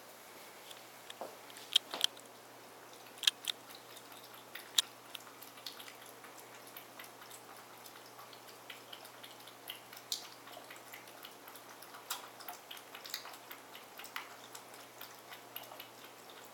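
Pets eating: irregular crunching and clicking of chewing, with a few sharper clicks standing out in the first five seconds and again about ten seconds in.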